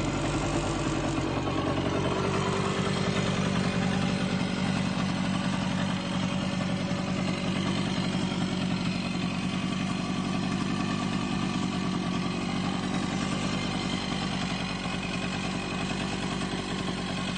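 Yamaha Tri-Moto 125's two-stroke single-cylinder engine idling steadily, settling to an even idle about two seconds in.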